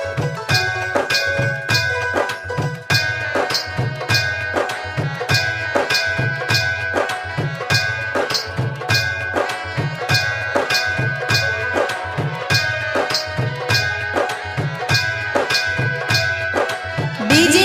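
Music played loud on a DJ sound system: a fast, even beat of Indian-style hand drums over heavy bass, with a steady held tone above it.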